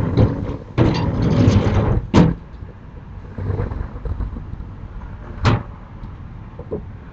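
Sliding rain shutters (amado) rattling along their tracks for about two seconds, then banging shut twice, once about two seconds in and again near five and a half seconds.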